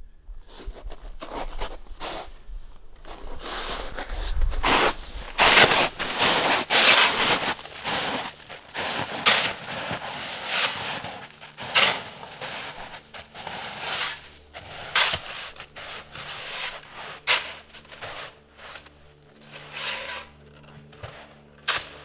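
Footsteps crunching through crusted snow, an uneven run of crackly steps that are loudest a few seconds in and grow fainter as the walker moves off.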